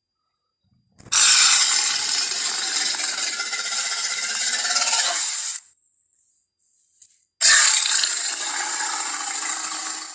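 Two Jurassic Park Tyrannosaurus rex roar sound effects, each harsh and rasping and starting suddenly. The first begins about a second in and runs about four and a half seconds. The second, shorter one begins a couple of seconds after the first ends.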